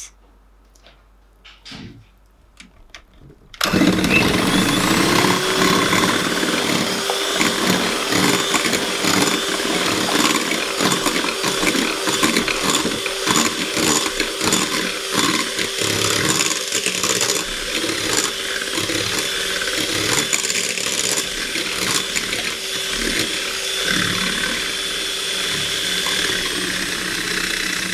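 Electric hand mixer switching on about three and a half seconds in and beating oil into an egg-and-sugar cake batter in a glass bowl. Its motor gives a steady whine that drops away near the end while the beating noise carries on.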